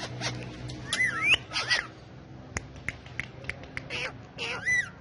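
Indian ringneck parakeets calling: short squawks with arching, gliding pitch about a second in and again near the end, with scattered sharp clicks in between.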